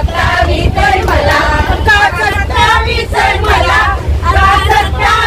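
Group of women singing together and clapping, over the steady low rumble of a moving train coach.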